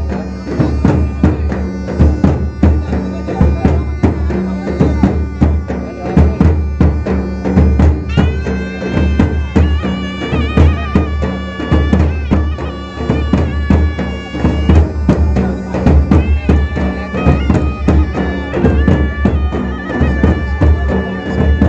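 Traditional folk procession music for the palkhi dance: steady, driving drumming, joined about eight seconds in by a reed-like wind instrument playing long held notes that come back again after about sixteen seconds.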